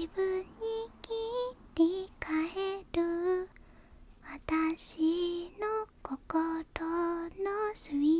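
A woman singing a slow melody softly, in a small, hushed voice. The notes are short and held, with brief breaks between phrases.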